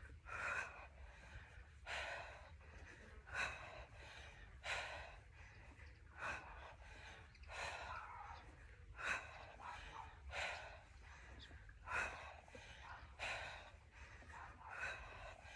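A woman's hard breathing in time with sit-ups: a sharp, breathy exhale with each rep, about one every second and a half.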